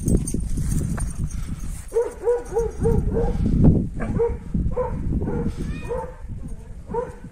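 Kangal shepherd dog barking in a quick run of short calls starting about two seconds in, over a low rumble of wind on the microphone.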